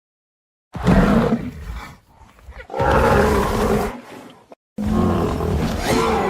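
Three deep, loud animal roars in quick succession, edited sound effects standing in for a rhino's voice, each cut off cleanly with dead silence between. The last one falls in pitch as it goes.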